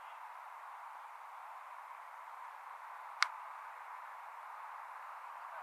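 A steady background hiss, with one sharp crack about three seconds in: a cricket bat striking the ball.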